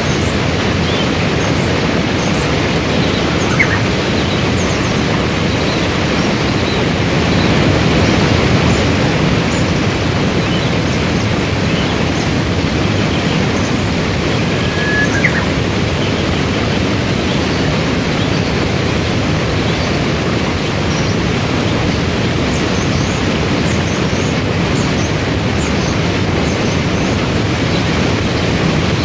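Waterfall and river rapids rushing: a loud, steady wash of water noise. A couple of faint, short high chirps stand out above it.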